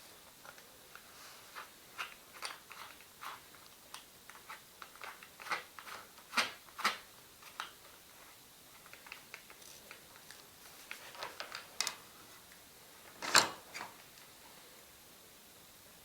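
Light, irregular clicks and knocks of wood and tools being handled, with one louder knock about 13 seconds in; no drill motor is running.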